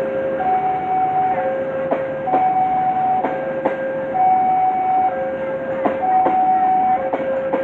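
Level-crossing warning alarm ringing a repeating high-low two-tone chime, each tone just under a second long. Under it, the wheels of a passing passenger train clack over the rail joints.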